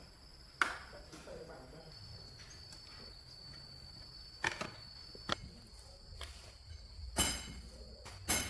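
A few irregularly spaced sharp knocks of a metal hand tool, the last ones ringing briefly, over a steady high trill of insects.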